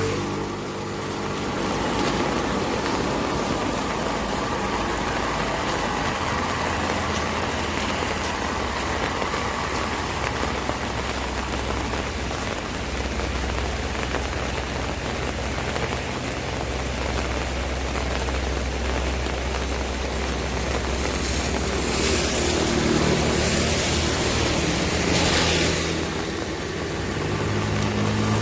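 Steady rain falling on an umbrella, over the low hum of car traffic; a vehicle engine comes up near the end.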